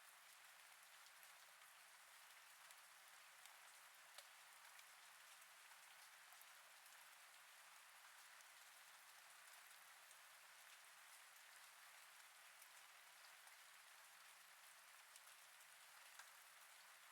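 Faint steady rain sound effect: an even hiss of rainfall with scattered drop ticks.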